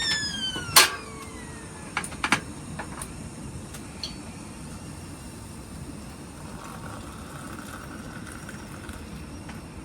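A kettle whistle that falls in pitch and dies away within about a second, with a sharp click partway through and a few more clicks and clinks soon after, over a steady low hiss.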